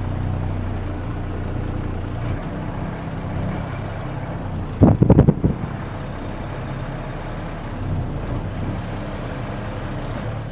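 Mercedes-Benz Unimog U2450 6x6's diesel engine running steadily while crawling off-road, with a short loud pulsing burst about halfway through.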